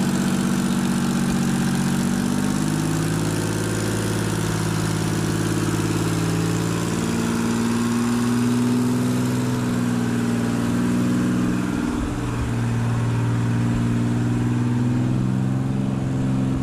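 Clark Michigan wheel loader's diesel engine running steadily at low revs, its pitch stepping up and down a little a few times as the revs change.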